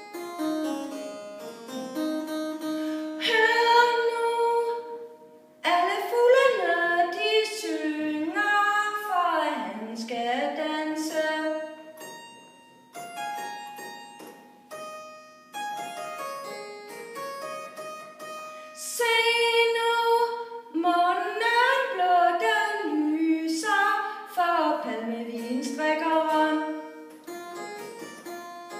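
A woman singing a slow blues song in Danish, accompanied by a Lindholm harpsichord. The voice comes in long, wavering phrases, with stretches of plucked harpsichord chords alone between them.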